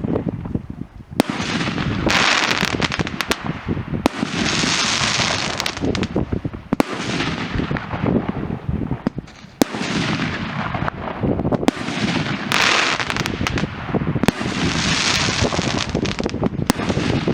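Fireworks going off: a string of sharp bangs mixed with stretches of dense crackling, with no let-up.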